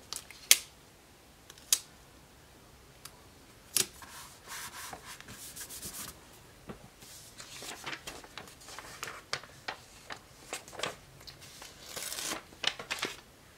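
Paper sticker sheets being handled and peeled: soft paper rustling and crinkling in two long stretches, with three sharp taps in the first few seconds.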